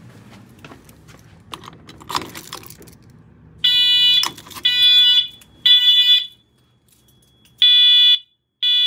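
Wheelock Eluxa multitone horn strobe sounding its Code 3 (temporal-3) horn tone: a loud pitched horn tone, not a low-frequency one, in pulses of about half a second, three in a row, a pause, then the next group of three beginning. Faint clicks and rustling come before the first pulse, which starts about three and a half seconds in.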